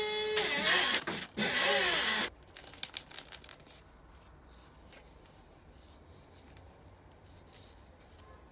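A high, wavering pitched sound with overtones for about the first two seconds, then crinkling of a plastic-wrapped L.O.L. Surprise toy cone being handled: a brief flurry of crackles, then faint rustling.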